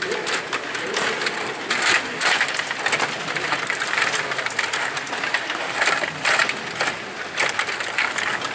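Stiga table hockey in fast play: the metal control rods sliding and clacking as the plastic players are pushed and spun, and the puck knocking against sticks and boards. A continuous, irregular clatter of sharp clicks.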